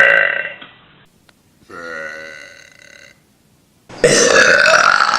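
Three burps one after another. The first is loud and dies away in the first second. A drawn-out pitched burp comes about two seconds in and lasts over a second. Another loud, noisier burp starts suddenly about four seconds in.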